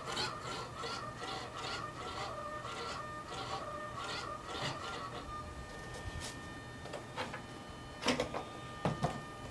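A radio-control servo whining as it drives the model's rudder rapidly back and forth, about three strokes a second, for about five seconds. Then it holds with a steady faint hum, and a few sharp handling knocks come near the end.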